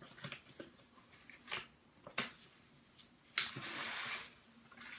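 Handling noises as a paper certificate is fetched: a few light taps and knocks, then a rustle lasting about a second, starting about three and a half seconds in.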